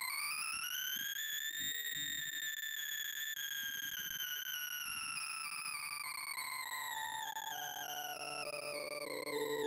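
Sorting-visualizer sine-like synth tone whose pitch follows the array values under the scanning cursor during a Cocktail Merge Sort pass over a bell-curve input. It glides up to a high peak about two seconds in, then slowly slides down, turning wavering and stepped near the end where swapped elements leave the curve jagged.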